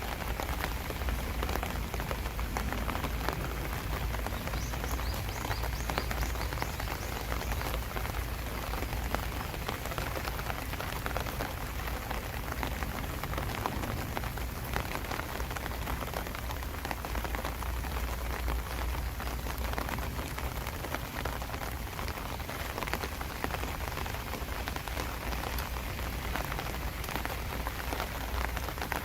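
Steady summer rain falling, a continuous hiss dotted with many separate drop ticks, over a steady low rumble.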